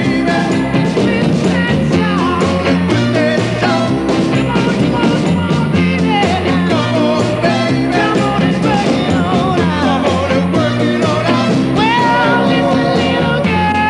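Rock music backing track, playing steadily and loudly.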